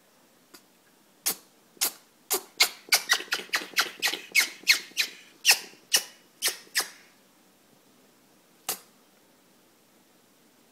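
Eclectus parrot in a sneezing fit: well over a dozen short, sharp sneezes in quick succession over about five seconds, coming fastest in the middle, then one last sneeze about two seconds later.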